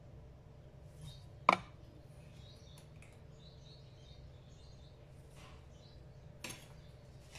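Coarse sugar spooned into a glass blender jar: a sharp tap of the spoon on the glass about a second and a half in, faint trickling of sugar grains, and a softer knock near the end.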